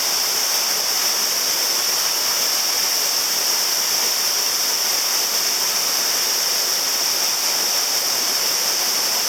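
Waterfall pouring into a pool: a loud, steady rush of falling water with a strong high hiss and no breaks.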